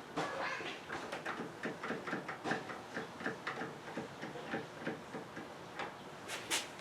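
A run of light clicks and taps, two or three a second, from small glued parts being handled and pressed into place, with two sharper clicks near the end.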